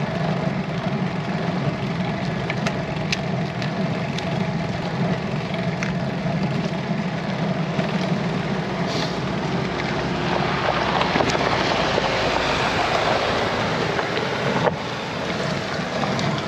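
A car's engine running close behind, then the car overtaking, its engine and tyre noise building from about ten seconds in and dropping away a few seconds later. Wind buffets the microphone throughout.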